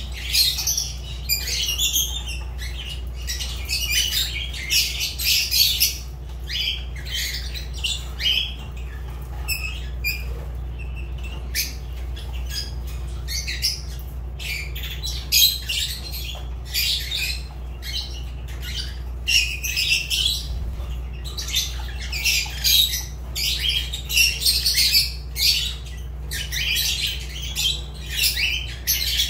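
Fischer's lovebirds chattering with a near-continuous string of shrill, high-pitched chirps and squawks, over a steady low hum.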